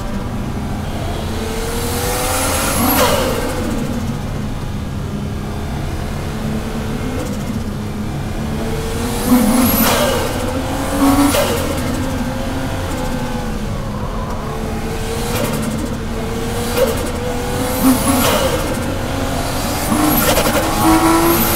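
Toyota JZX-series car's JZ straight-six engine under hard driving, heard from inside the cabin: the revs climb and drop sharply again and again, with a short burst of hiss each time the revs fall.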